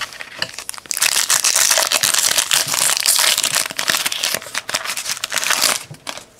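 Wrapper of a Donruss football trading-card pack being torn open and crinkled. It is a loud, dense crackle that starts about a second in and stops shortly before the end.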